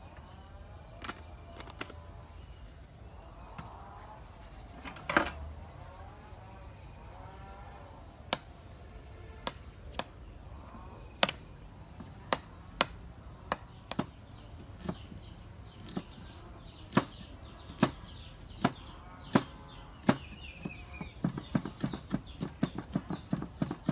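A metal spoon clinking now and then against a ceramic bowl while tamarind is stirred, with a sharp clatter about five seconds in and faint bird calls in the background. Near the end a cleaver starts chopping quickly on a wooden board, about four or five knocks a second.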